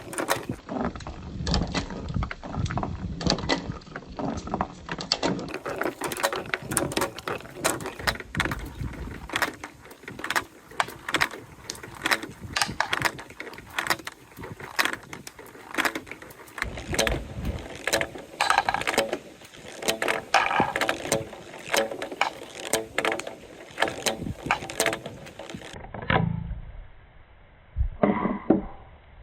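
Marbles rolling and clattering down a plastic TrixTrack marble-run track, a rapid, continuous stream of clicks and knocks. Near the end the clatter thins to a few separate knocks.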